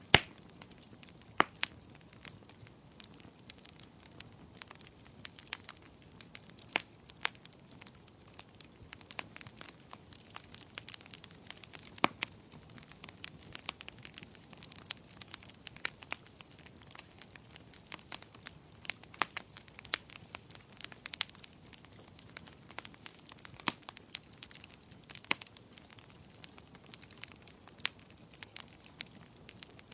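Wood fire in a fireplace crackling, with irregular sharp pops and snaps over a soft steady hiss; one loud pop right at the start.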